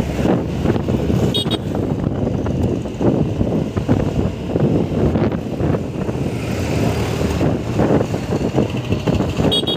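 Ride noise on a Honda Activa 125 scooter, with its single-cylinder four-stroke engine running, moving through street traffic: a steady, uneven rumble of engine, road and surrounding vehicles. Two short high beeps sound, about 1.5 s in and again near the end.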